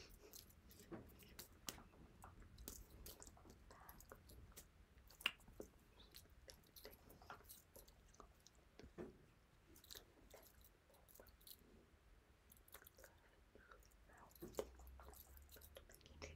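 Near silence in a small room, broken by faint, scattered clicks and taps, with a sharper one about five seconds in: the small handling and mouth noises of a person signing close to the microphone.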